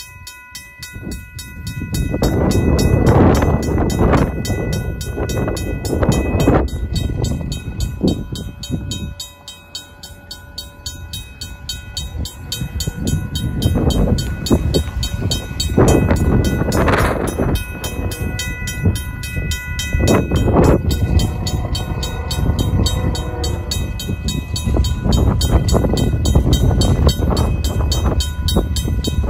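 RACO mechanical railroad-crossing bell ringing on and on with the flashing signals, over heavy low rumbling that swells and fades.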